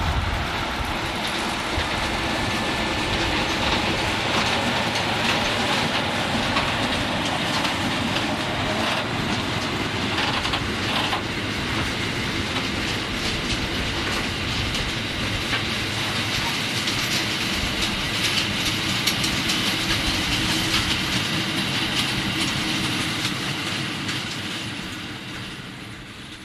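A train of yellow track-maintenance hopper wagons rolling past at close range, making a steady noise of wheels on the rails. The noise fades away over the last few seconds as the end of the train passes.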